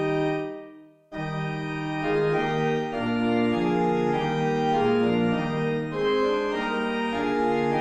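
Organ playing slow, held chords that change every second or so. It starts abruptly about a second in, after a moment of silence.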